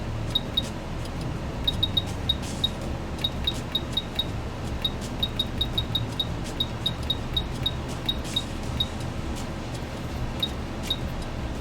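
Quick 861DW hot air rework station: a run of short high-pitched ticks or beeps, a few a second and unevenly spaced, over a steady whirring fan hum.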